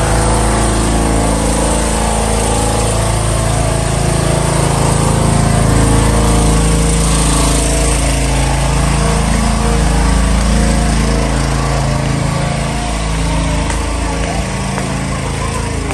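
A small motor running steadily and loudly, its pitch wavering slightly up and down.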